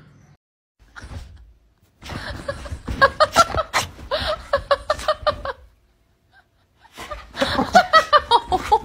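A woman laughing in rapid, high-pitched bursts, in two bouts: one starting about two seconds in, the other about seven seconds in.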